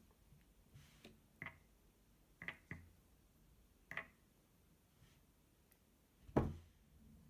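A few light clicks and taps from small plastic slime-kit pots and bottles being handled while the slime activator is measured out, about five separate taps with a louder knock near the end.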